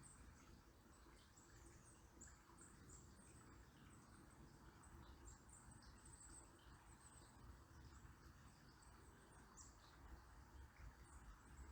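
Very faint outdoor ambience: many short, thin, very high chirps from small birds, scattered throughout, over a low steady background rush.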